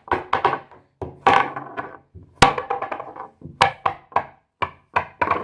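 Fidget toys handled and knocked together or set down on a hard surface: an irregular run of knocks and clacks, with two sharp clicks about two and a half and three and a half seconds in.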